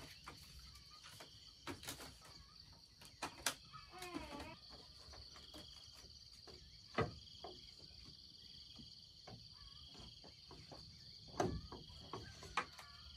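Steady high-pitched drone of insects, with several sharp clicks or knocks scattered through it and a short wavering animal call about four seconds in.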